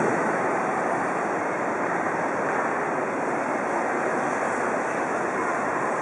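Steady ambient noise of a busy airport check-in hall, with indistinct crowd babble blended into an even hiss.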